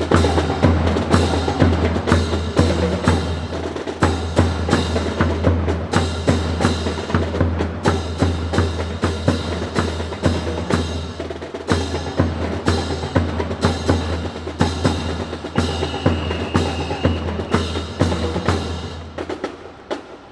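Music for a drill routine: a steady low bass under a dense run of sharp, wood-block-like percussive clicks. It fades out near the end.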